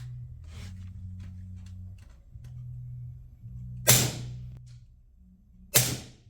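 Two shots from a Huben GK1 .25-calibre PCP air pistol fitted with a moderator, about two seconds apart, each a sharp crack with a short ring after it. A sound meter reads them at 105 and 104 dB.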